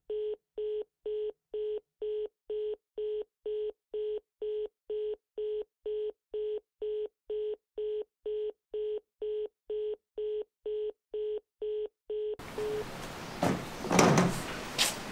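Telephone busy tone: a single-pitched beep pulsing nearly three times a second, the sign that the call has been cut off. A little past twelve seconds it stops and gives way to a noisy background with a few sharp knocks.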